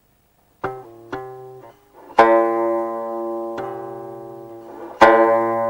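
Guqin plucked in the 'taocuo sansheng' figure: two light single plucks, then a loud two-string chord (cuo) that rings on, then one more pluck and another ringing chord.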